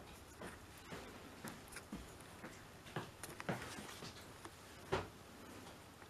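Scattered light knocks and clicks from dog food bowls and dry kibble being handled on a wooden floor, the loudest knock about five seconds in.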